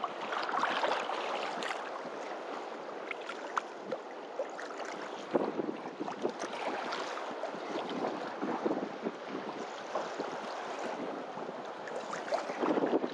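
Small waves washing on a beach, with wind buffeting the microphone and scattered light ticks and splashes.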